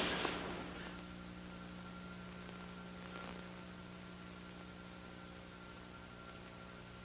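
Steady mains hum and hiss from an old film soundtrack, at a low level.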